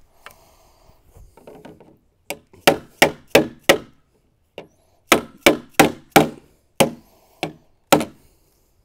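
A mallet striking the plastic pool-step frame to knock the parts together: five quick blows a little past two seconds in, then seven more, more widely spaced, from about five seconds in.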